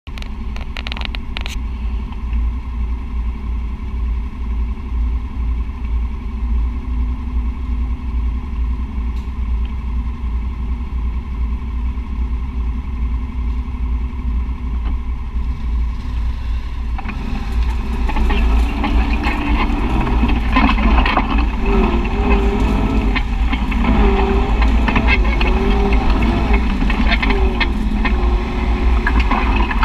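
Side-by-side UTV engine running steadily at a low idle, with a few clicks right at the start. About 17 seconds in it gets louder and revs up and down as the machine gets under way.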